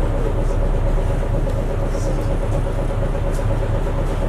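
A city bus heard from inside the cabin: its diesel engine's steady low hum and rumble, with a constant mid-pitched tone over it.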